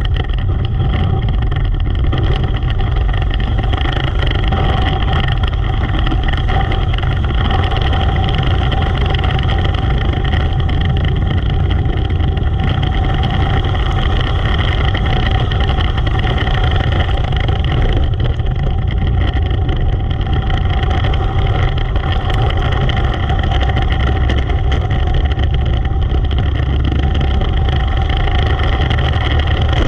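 Racing engine running hard at steady revs, a continuous buzzing drone with no rises or drops in pitch.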